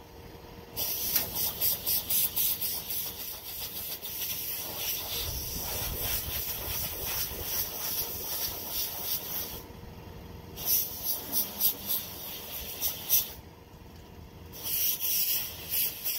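Ratchet wrench clicking in quick runs, stopping and starting several times, as a fitting on the tractor engine is tightened.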